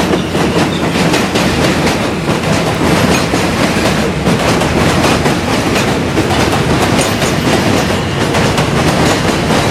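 Elevated subway train running along its steel structure, a loud, steady clatter of wheels on track.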